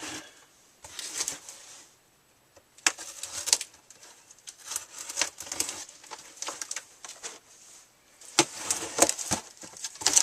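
Packages being handled: irregular rustling and crinkling of packaging, with a few sharp knocks near the end.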